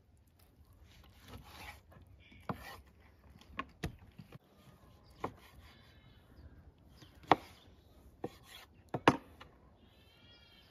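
Kitchen knife slicing raw meat on a wooden cutting board: irregular sharp knocks of the blade hitting the board, about eight in all, the loudest about seven seconds in and a quick pair around nine seconds in, with softer cutting and rubbing between.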